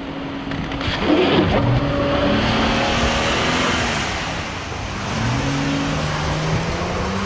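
A vehicle's engine revving, its pitch rising and falling, over a rushing noise that fits tires spinning in snow.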